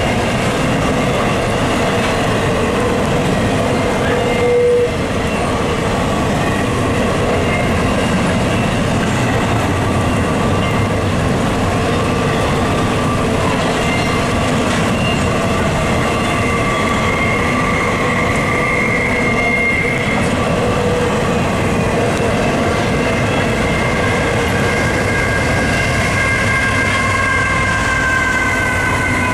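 Double-stack intermodal freight train rolling past: a steady rumble of wheels on rail, with long, slowly wavering squealing tones from the wheels on the rails.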